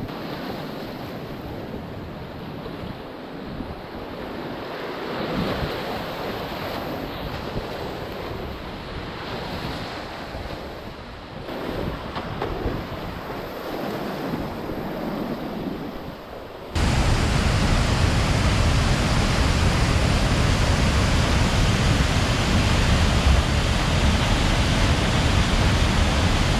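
Whitewater of a creek rapid rushing around a kayak, muffled and uneven. About 17 seconds in it cuts suddenly to the louder, steady roar of a waterfall.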